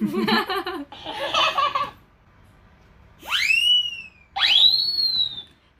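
High-pitched, squeaky voice sounds from a mimicking cactus toy: a short babble in the first two seconds, then two long swoops that each rise and then fall.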